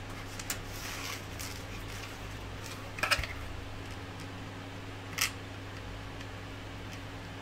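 3D-printed plastic parts being handled: light rustling, then a sharp plastic click about three seconds in and a second, softer click about two seconds later, over a steady low hum.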